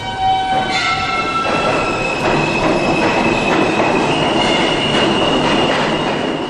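Subway train running along the track, its steel wheels squealing in several high, steady tones over the rolling noise.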